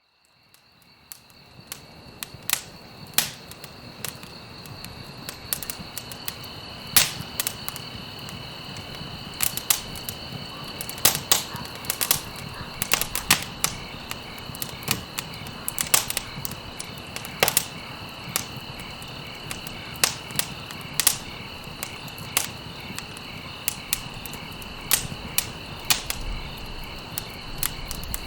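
Wood campfire crackling, with sharp pops about once a second, over a steady high-pitched insect trill. The sound fades in from silence over the first two seconds.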